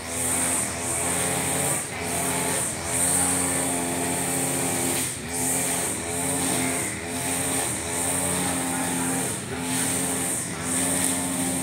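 Husqvarna 542RBS backpack brush cutter's two-stroke engine running at high revs with the nylon trimmer line whirring through short grass. The engine note dips and recovers about once a second as the head sweeps from side to side under load.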